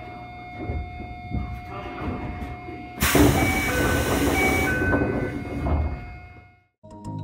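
Toei 5300-series commuter train standing at a platform with a steady electrical hum and a few knocks. About three seconds in, a loud hiss of air comes with a two-note falling chime sounded twice, as the doors close. The sound cuts off near the end.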